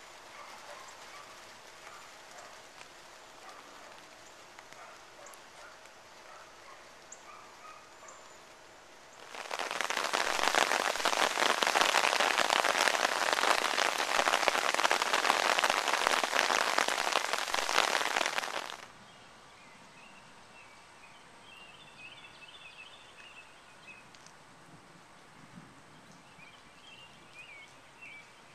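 Heavy rain hissing steadily for about nine seconds in the middle, cutting in and out abruptly. Before and after it, a faint outdoor hush with short bird chirps.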